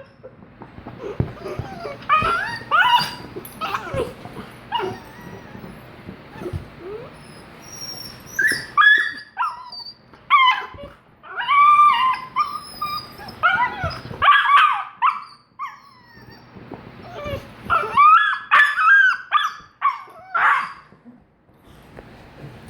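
A puppy making high-pitched yips, whines and little barks in repeated bursts while it plays at and fights a hand, with scuffling between the bursts.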